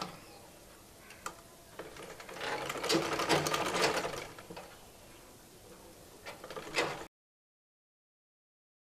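Black domestic sewing machine stitching a side seam in cotton fabric, running mechanically in a spell from about two seconds in to about four and a half. A few clicks follow, then the sound cuts off abruptly about seven seconds in.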